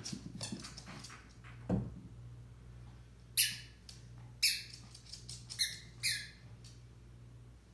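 A ball thumps and clicks across a hardwood floor, then from about three seconds in a squeaky dog toy squeaks sharply several times as a small dog mouths it.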